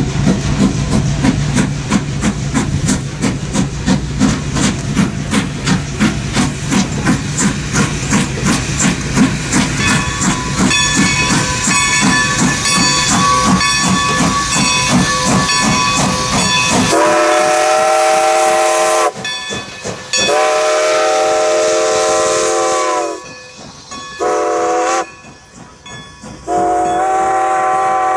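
Steam locomotive hauling a passenger train, its exhaust chuffing in a steady rhythm as it approaches. Its steam whistle then blows two long blasts, a short and a long: the grade-crossing signal.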